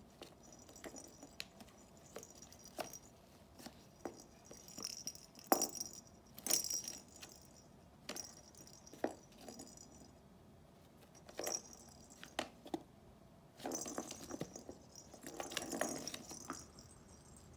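A kitten pawing and batting at a hunting-box toy: irregular knocks, taps and scratches with light rattling, in bursts with short pauses between.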